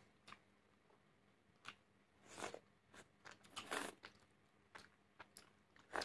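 Faint eating sounds: noodles slurped and chewed, with scattered short wet mouth clicks and a longer slurp a little before four seconds in.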